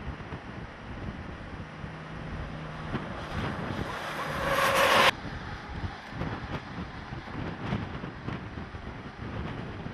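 Wind buffeting the camera microphone with a steady rushing noise. About halfway through, a louder rush builds for a couple of seconds and then cuts off suddenly.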